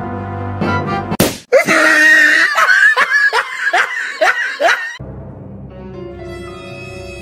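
Brass background music, then a rubber party balloon bursts with a sudden bang about a second in. A run of loud swooping, voice-like cries follows, and from about five seconds other background music plays.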